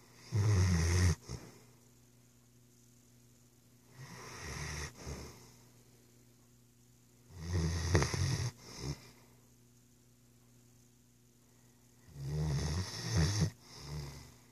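A sleeping dog snoring: four slow snores, each a second or so long, about four seconds apart.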